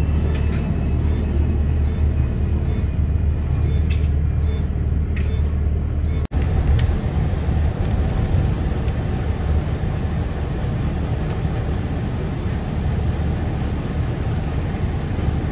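Steady low rumble of engine and traffic noise, broken by a brief cut about six seconds in, after which the deepest hum is weaker.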